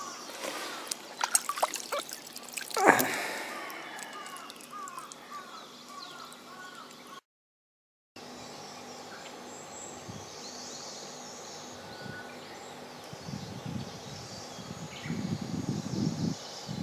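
A black bass thrashing and splashing in shallow water at the pond's edge, with one loud splash about three seconds in, followed by a bird chirping several times. After a brief gap, faint steady outdoor background with low irregular rumbles near the end.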